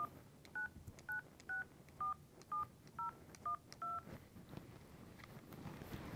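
Telephone keypad being dialed: a string of about nine short touch-tone beeps, each a pair of tones, about two a second, stopping about four seconds in.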